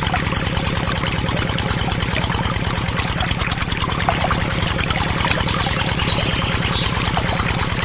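A stream of water pouring from a miniature belt-driven pump's pipe into a small plastic tub. Beneath it runs a steady, rapid chugging from the model diesel engine driving the pump.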